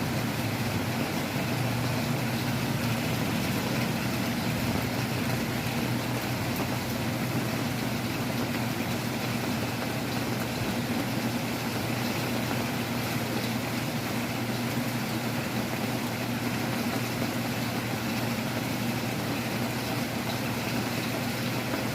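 Heavy rain and wind: a steady rushing noise with a low steady hum underneath.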